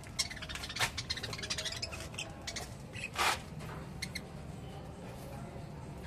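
Budgerigars chattering: rapid short clicks and chirps over the first couple of seconds, a louder short rasping burst about three seconds in, then a few more clicks.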